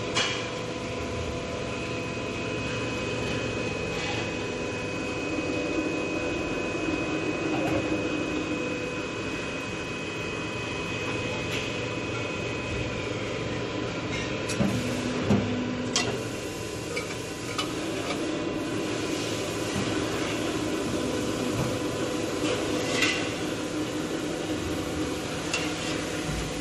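Square tube machine running steadily, a constant mechanical hum with several held tones, with a few sharp metallic knocks from steel tubes being handled.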